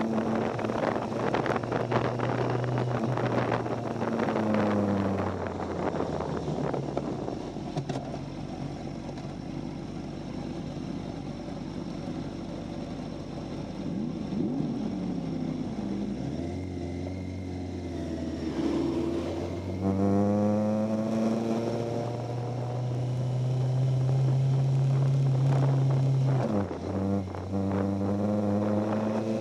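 Kawasaki Ninja sportbike engine heard from the rider's position, with wind rush. The engine's pitch drops as the bike slows, runs low for a stretch, then climbs through the gears with a short dip at a gear change and climbs again near the end.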